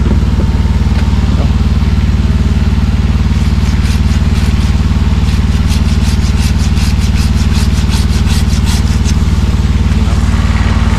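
Hand pruning saw cutting through a tree limb in quick strokes, about three to four a second, from about three seconds in until about nine seconds. Under it, an aerial lift's engine runs with a steady low drone.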